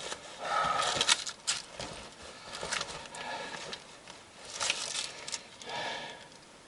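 Intermittent rustling, scraping and small clicks of hands working a jacket and its split zipper.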